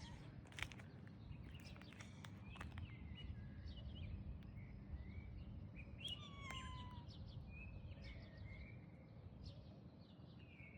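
Small birds chirping and calling outdoors, with one short falling whistle about six seconds in, over a steady low outdoor rumble.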